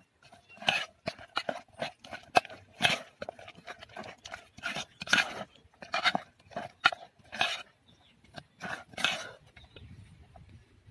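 A steel spoon stirring thick idli batter mixed with chopped vegetables in a metal pot: an irregular run of short, wet squelching and scraping strokes, a couple a second, thinning out near the end.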